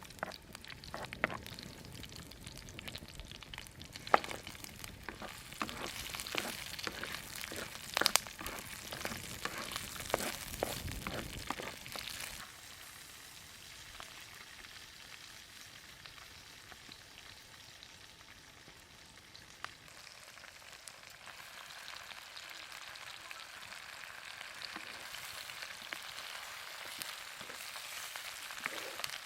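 Food frying with a steady sizzle. For about the first twelve seconds a utensil stirs and knocks against the cookware; after that only the sizzle goes on, slowly growing louder.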